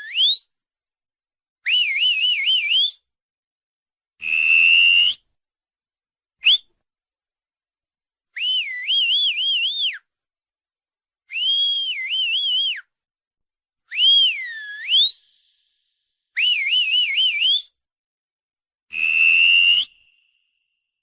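A person whistling a string of separate whistles, about eight in all, each a second or so long with silence between. Some warble rapidly up and down, some swoop down and back up, some hold a steady note that lifts at the end, and one is a short chirp.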